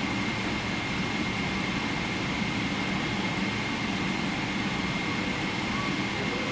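Steady jet airliner noise of a Boeing 777 as heard from inside the cabin: an even rush of engine and airflow noise over a low hum, with a thin constant high whine.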